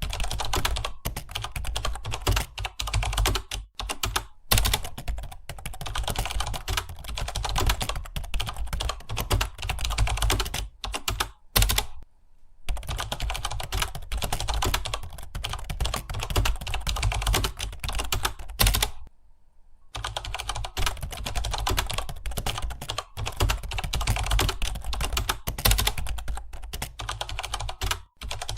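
Fast, continuous typing on a computer keyboard, a rapid stream of key clicks broken by two short pauses, one near the middle and one about two-thirds through.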